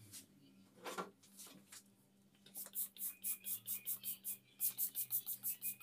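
Dishes being washed in a sink: a single scrape about a second in, then rapid, even scrubbing strokes, about five a second, from halfway through.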